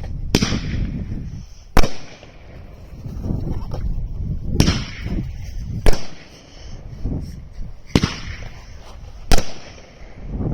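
A Great American Fireworks Company "Henry" 350-gram, 12-shot firework cake firing its shots. There are about six sharp bangs a second or two apart, with a rumbling noise between them.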